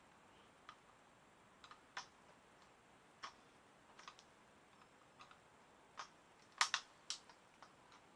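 Scattered clicks and taps from small plastic parts of a plug-in timer switch being handled and prised apart, with a louder cluster of clicks about six and a half seconds in.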